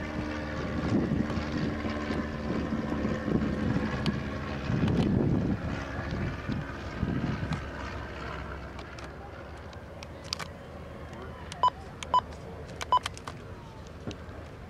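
Light propeller aircraft's engine droning as it passes, fading away over the first half. Near the end come a few sharp clicks with short beeps.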